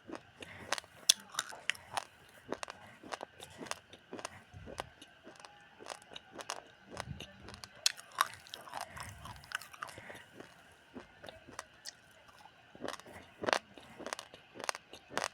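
Raw, uncooked rice grains crunched and chewed between the teeth: a steady run of sharp cracks, two or three a second, with a short lull about two thirds of the way through.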